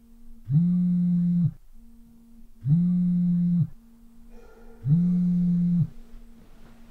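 Smartphone vibrating against a wooden surface with an incoming call: three one-second buzzes about two seconds apart, a fourth starting at the very end, each winding up and down at its ends.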